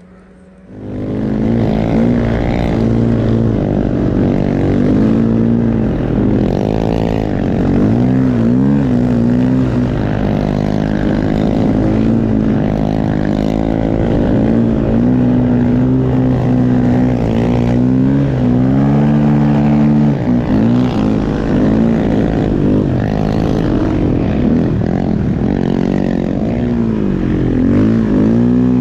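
Snow bike (a dirt bike with a snow track kit) engine running hard under load, its revs rising and falling continually as it is ridden through deep snow, heard close up from the bike. The engine comes in sharply about a second in.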